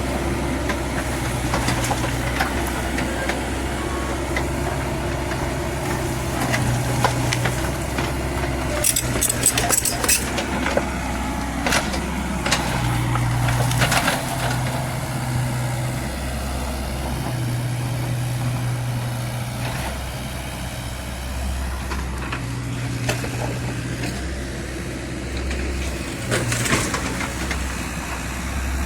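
Kubota U50 mini excavator's diesel engine running, its note rising and falling as the hydraulics take load while it digs. Irregular knocks and scrapes of the bucket in soil and rock come about 9 to 10 seconds in, again around 12 and 14 seconds, and near the end.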